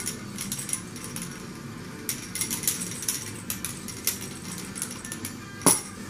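Plastic toy rings clinking as they are shaken, a run of light, irregular clicks, with one louder clack near the end.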